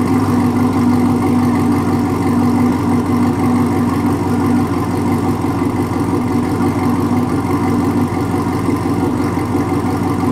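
2014 Chevrolet SS's 6.2-litre LS3 V8 idling steadily, heard at the tailpipes, through Kooks 1 7/8-inch long-tube headers, catless connection pipes and a Corsa cat-back exhaust.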